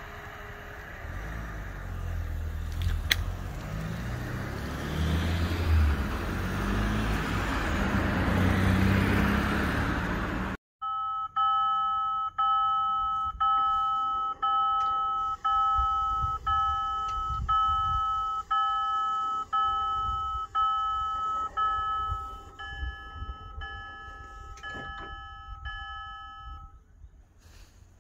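Aarhus Letbane light-rail train running past, a rising rumble and rush that grows louder through the first ten seconds. Then a level-crossing warning bell rings about once a second, signalling an approaching train, and stops a little before the end.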